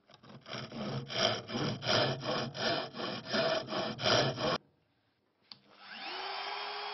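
Fine-toothed hand saw cutting into a wooden board along a marked line for a joint, in rapid even strokes about four a second, stopping after about four and a half seconds. Near the end a small electric trimmer router clicks on and spins up to a steady whine.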